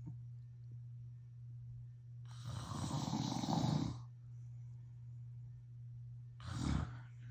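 A man snoring in his sleep: one long snore about two and a half seconds in and a shorter one near the end, over a steady low hum.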